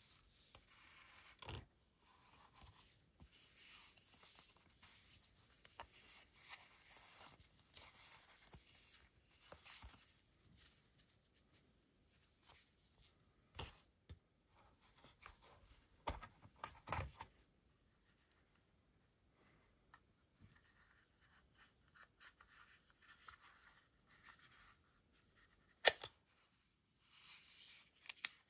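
Cotton-gloved hands handling cardboard and paper packaging: rustling and sliding, with a few sharp taps and clicks, the loudest near the end, and a brief quiet pause about two-thirds through.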